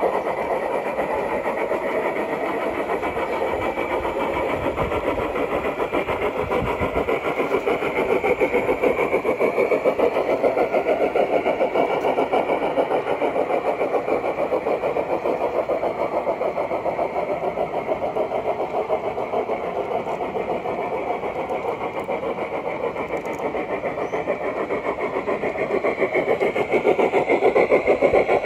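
Large-scale model trains (Bachmann narrow-gauge C-19 and K-27 steam locomotives with their cars) running on garden-railway track: a steady, continuous rolling rumble of wheels and drive gearing, growing louder near the end as a locomotive comes close.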